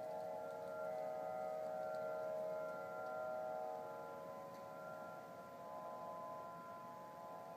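Unexplained hum in the sky made of several steady tones sounding together, with their pitches shifting slightly. It eases off a little about halfway through. The uploader takes it for something mechanical and man-made.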